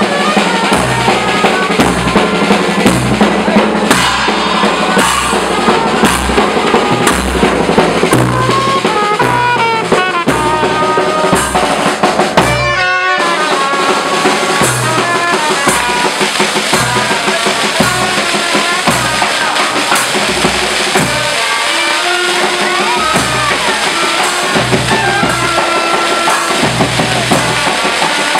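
Street band playing: a big bass drum and other drums beat a steady rhythm, and saxophones play a melody over it after a few seconds.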